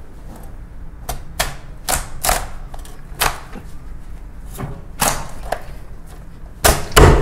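Large kitchen knife cracking through the shell of a giant live lobster's head on a wooden cutting board: an irregular string of sharp cracks and knocks, with the loudest thumps near the end.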